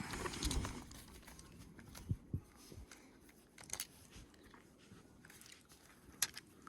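Small Torx screwdriver backing screws out of a cordless drill's plastic housing: faint scraping and turning noises with a few scattered clicks.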